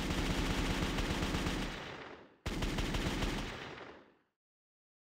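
Automatic gunfire sound effect: two long bursts of rapid shots, the second shorter, each tailing off at the end.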